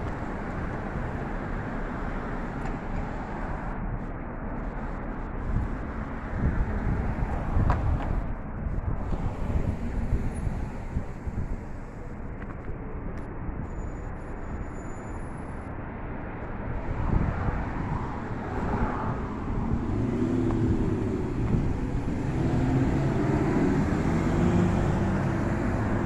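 Road traffic noise: cars running along the street, with low rumble over the recorder. It grows louder about three-quarters of the way in as a vehicle's engine comes closer.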